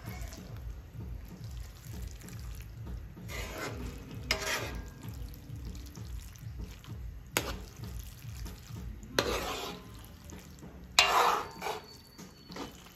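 Metal spoon stirring spaghetti in sauce in a large aluminium wok, making intermittent wet scraping strokes and a few sharp clinks of spoon against pan.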